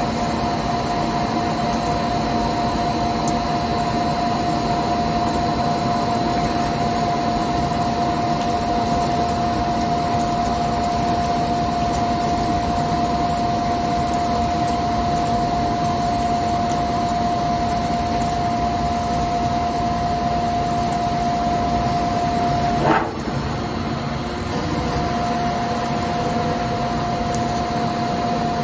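CNC lathe running with coolant spraying: a steady machine noise with a steady whine and a hiss. Near the end there is a short click, and the whine drops out for about two seconds before returning.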